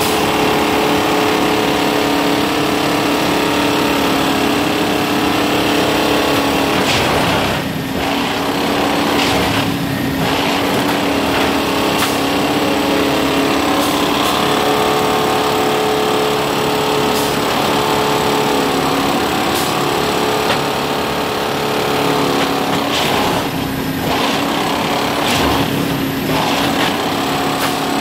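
Heavy Plasser & Theurer track maintenance machine working: a steady engine drone with occasional sharp knocks.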